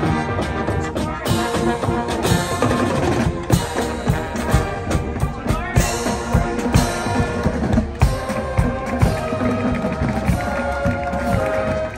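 Brass and drums of a bicycle show band playing while riding: sustained brass chords over a steady, regular drum beat.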